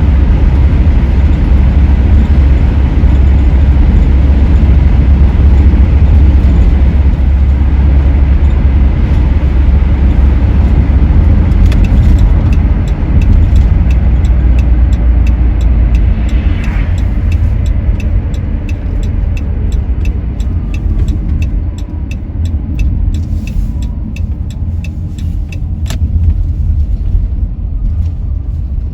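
A Dodge Grand Caravan's engine and road noise while driving: a steady low rumble that eases and thins out over the second half as the van slows. From about twelve seconds in, a faint regular ticking joins, two to three ticks a second.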